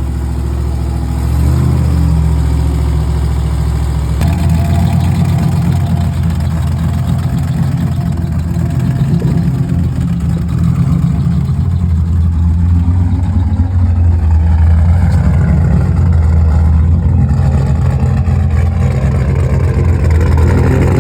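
A project car's engine runs loudly just after its first start. Its note turns rougher and a little louder about four seconds in, then holds with small rises and falls in revs.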